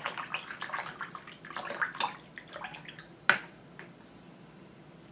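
A paintbrush being swished in water, with a quick run of small splashy clicks and one sharp knock a little over three seconds in; the brush is being rinsed between colours of water-mixable oil paint.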